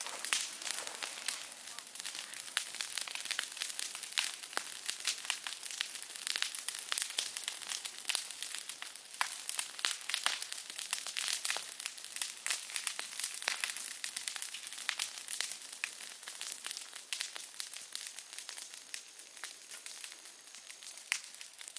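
Dry leaves and twigs rustling and crackling, a dense, irregular run of crisp snaps and crunches with no steady rhythm.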